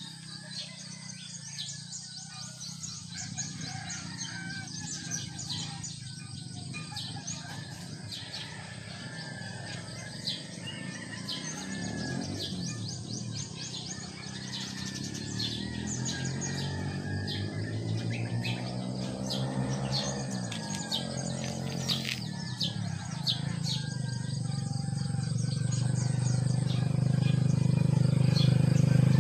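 Small birds chirping in many quick, short calls, over the low hum of a motorcycle engine that rises and falls in pitch and grows louder toward the end.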